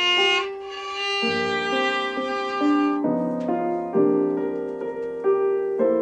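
Violin playing a slow melody at sight, holding sustained notes, over a recorded piano accompaniment whose chords sound about a second in, at four seconds and near the end.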